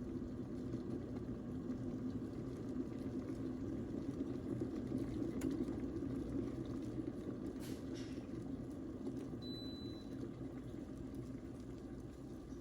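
Electric tea kettle heating water: a steady low rumble and hiss as the water comes toward the boil.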